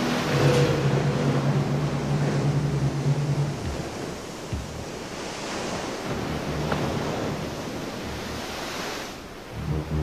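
Shallow surf washing and swirling over beach rock in uneven surges. A low steady hum sits under it for the first three and a half seconds, then stops.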